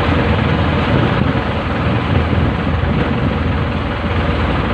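Fishing boat's engine running steadily, a low even drone with a constant rushing noise over it.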